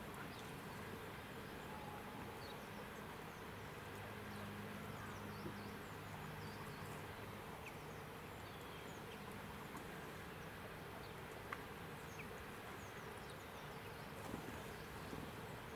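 Faint steady outdoor background hiss, with a low hum through the first few seconds and scattered faint short high chirps.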